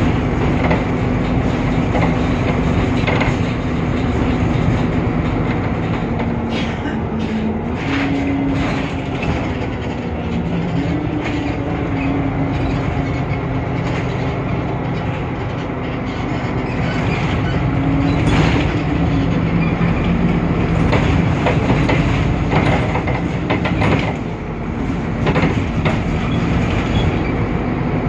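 Temsa Avenue LF city bus on the move: its DAF PR 228 diesel engine and ZF Ecolife automatic gearbox hum steadily, the tone stepping up and down several times, with frequent rattles and knocks from the bodywork.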